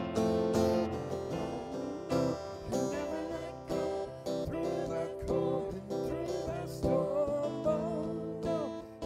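A live worship band playing a song: strummed acoustic guitar with a man singing the melody into a microphone from about three seconds in.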